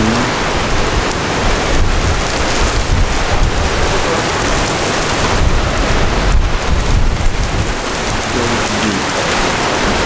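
Heavy rain pouring steadily onto pavement and parked cars, a dense hiss, with gusts of wind rumbling unevenly over the microphone in a thunderstorm.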